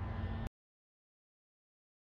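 Steady low background noise for about half a second, then the sound cuts off abruptly to dead silence.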